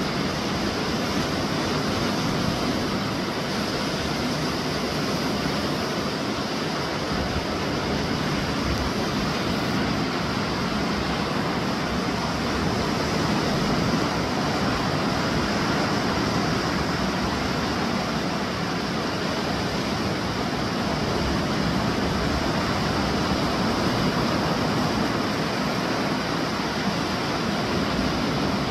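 Steady rushing noise of surf breaking along the beach, mixed with wind on the microphone.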